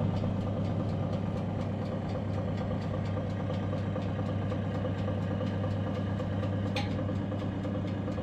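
An engine or motor running steadily: a low hum with fast, even ticking. A brief high squeak about seven seconds in.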